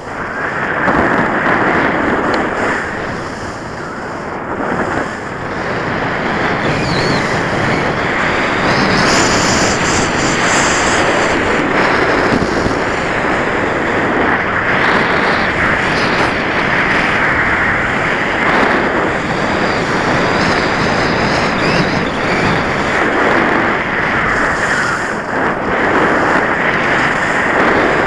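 Continuous scraping hiss of a fast slide over packed snow, mixed with wind buffeting the camera microphone. It eases off briefly a few seconds in, then runs steady and loud.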